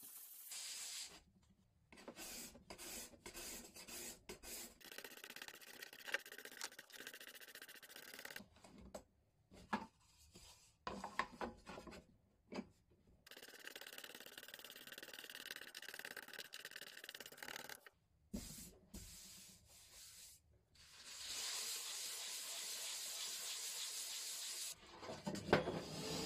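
Hand plane taking short, irregular rasping strokes across the face of a thin wooden board. Near the end a shop vacuum hose starts up with a steady hiss.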